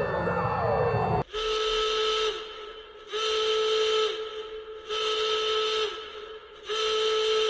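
A warning siren winds down with falling pitch, then sounds four steady horn-like alarm blasts, each about a second long and dipping slightly in pitch as it stops.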